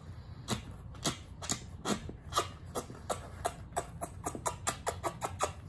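A string of quick kissing smacks of the lips, about four a second, coming a little faster toward the end.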